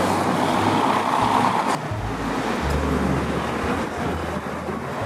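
City street traffic: a car passing, its noise loudest in the first couple of seconds and dropping off suddenly, then a steady lower traffic hum.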